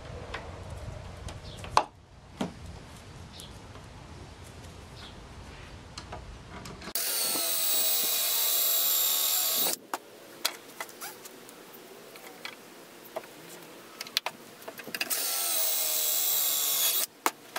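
DeWalt cordless drill boring pocket holes through a board held in a pocket hole jig: two runs of the drill's steady motor whine, about three seconds each, the first about seven seconds in and the second near the end. A sharp click about two seconds in as the jig's toggle clamp is locked, with small knocks of the board and bit being handled between the runs.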